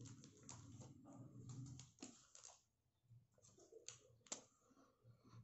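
Faint, scattered clicks and light taps of a pencil and drawing tools being handled. They come thickly in the first half, then thin out to a few sharper ticks.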